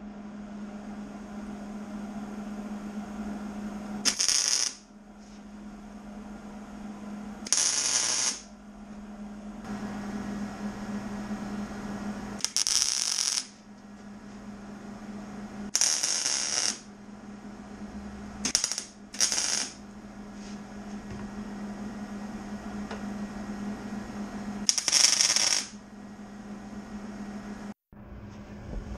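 Arc welder laying a series of tack welds on the pie-cut sections of a steel 3-inch exhaust pipe: about seven short crackling bursts, each half a second to a second long, two of them close together a little past the middle. A steady low hum runs underneath.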